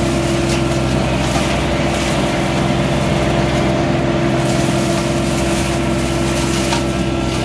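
Mini skid-steer loader's engine running steadily at constant speed while working a mulcher attachment, a continuous even machine drone.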